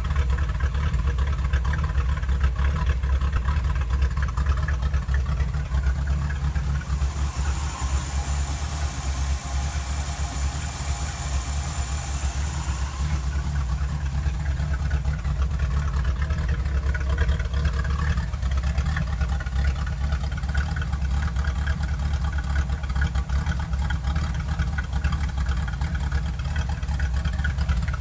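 Engine of a '66 vehicle idling roughly right after being woken up from sitting, a steady but uneven idle. A high hiss joins in for about six seconds roughly a quarter of the way through.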